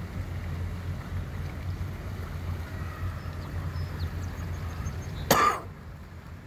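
Low steady rumble of motorboat engines over churned lock water, broken about five seconds in by one short, loud cough.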